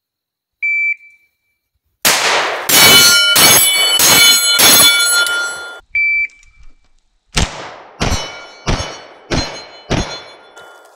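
Shot-timer beep, then a fast string of 9mm shots from a Freedom FX9 AR pistol, echoing, with a ringing tone hanging over them. A second timer beep follows, then five sharp shots from the same AR pistol, a little over half a second apart.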